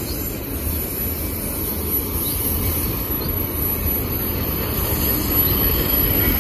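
Freight train's autorack cars rolling past at close range: a continuous rumble of steel wheels on rail that grows a little louder toward the end.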